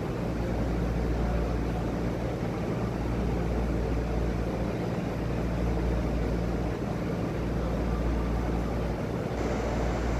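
Steady low mechanical hum with a deep rumble underneath.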